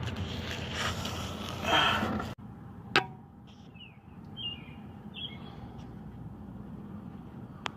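Van engine running, then stopping abruptly a little over two seconds in. After that comes a single sharp click, then a few short bird chirps over a quiet background.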